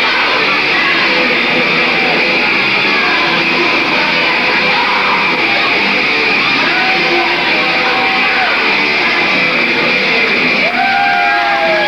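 Loud hard rock music with distorted electric guitar, with loud yells starting near the end.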